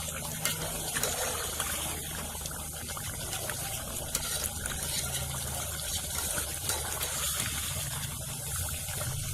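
Chicken korma sizzling steadily in the pan as it is fried down (bhuna) to a thick masala.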